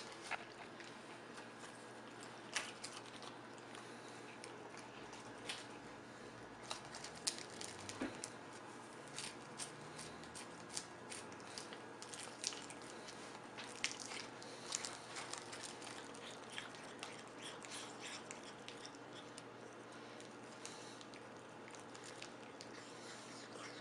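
A cat chewing, with many small, irregular crunches and clicks that come thickest through the middle stretch.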